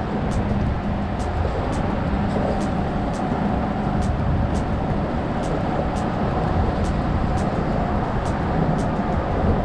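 Steady rumbling noise of wind and choppy bay water against a rocky seawall. Faint high ticks repeat about two or three times a second.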